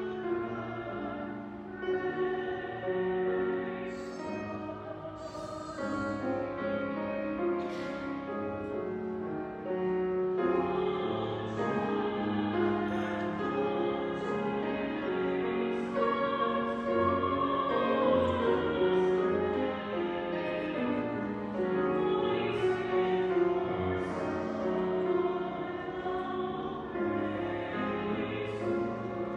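Sung church music during Mass: voices singing long, held notes over a low, sustained accompaniment.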